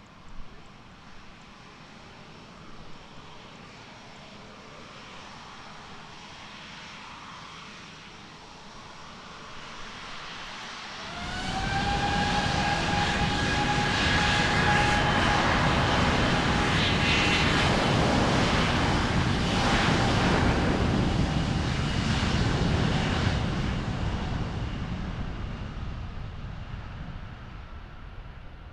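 Airbus A350-900's Rolls-Royce Trent XWB jet engines running quietly at first, then spooling up to takeoff thrust about eleven seconds in with a rising whine that settles into a steady tone. They stay loud through the takeoff roll, then fade over the last few seconds.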